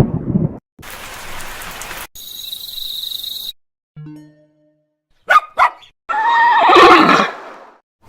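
A string of short stock sound effects: a hiss, a hiss with a steady high tone, a brief low tone and two short chirps, followed near the end by the loudest sound, a horse whinnying in one long wavering call.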